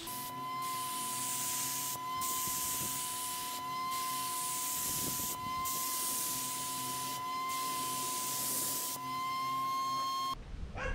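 Spray gun applying vinyl sealer to a wood tabletop: a steady spraying hiss in long passes, broken by short gaps about every second and a half to two seconds, over a steady high whine. The spraying stops shortly before the end.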